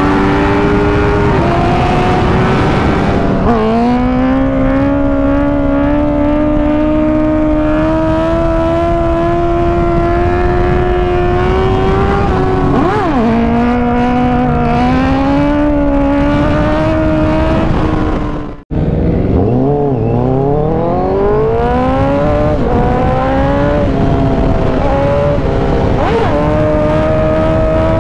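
Honda sport bike engine running at high revs under acceleration, its pitch climbing slowly through a gear and dropping at each upshift. After a sudden cut about two-thirds in, another Honda sport bike accelerates hard through several quick upshifts, each one a fast rising whine.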